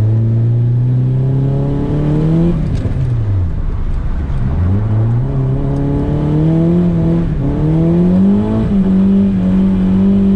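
Nissan S15 Silvia's four-cylinder engine heard from inside the cabin on a wet track: held at steady revs, then the revs drop sharply about three seconds in, climb back up over the next few seconds and hold steady near the end.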